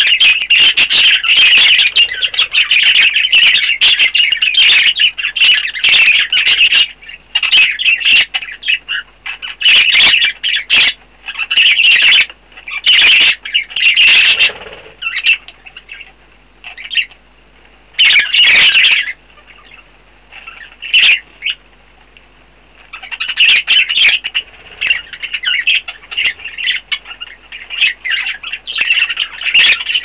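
Budgerigars chattering and squawking: a dense run of chatter for the first several seconds, then short outbursts with quieter gaps through the middle, and dense chatter again near the end.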